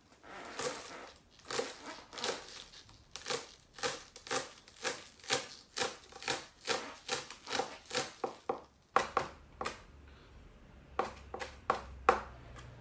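Kitchen knife mincing garlic chives on a cutting board: a steady run of knocks at about three a second. The steady chopping stops about nine seconds in, followed by a few separate knocks.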